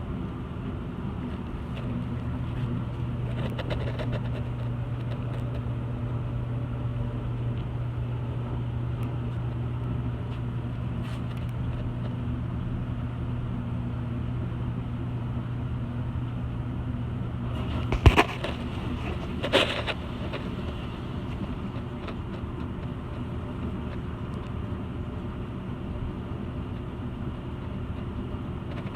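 A steady low mechanical hum over a background of noise, broken by two sharp knocks about a second and a half apart roughly two thirds of the way through.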